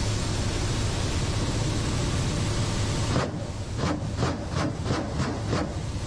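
Steady drone of a Ka-52 helicopter's coaxial rotors and twin turboshaft engines heard inside the cockpit. About three seconds in, a run of about seven sharp reports, about three a second, from the helicopter's weapons firing on the attack run, the drone dipping under them.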